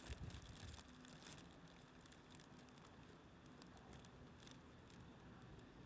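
Near silence: faint background hiss with a few light ticks and a faint steady low hum.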